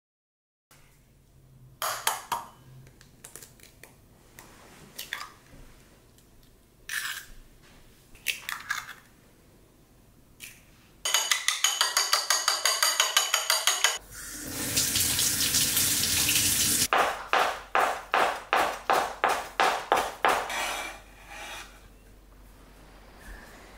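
Kitchen prep sounds: a few scattered utensil clatters, then chopsticks rapidly beating egg in a ceramic bowl, about six strokes a second. Next, a tap runs for about three seconds, and then a knife chops on a wooden cutting board, about three cuts a second.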